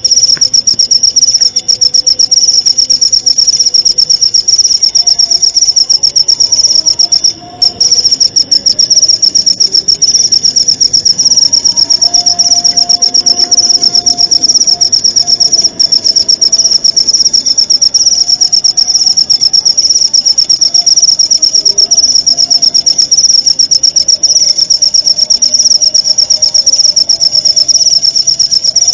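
Loud, continuous insect trill: a rapid, even pulsing chirp of a cricket-type singing insect, breaking off briefly twice, about seven seconds in and again about halfway through.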